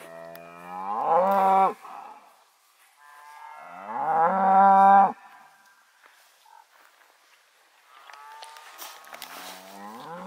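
A cow mooing three times: two loud, drawn-out calls of about two seconds each that rise in pitch at the start, then a softer call near the end.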